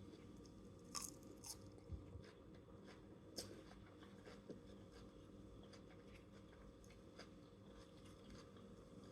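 Faint chewing and crunching of a veggie bowl, with a few soft clicks in the first half; otherwise close to silence.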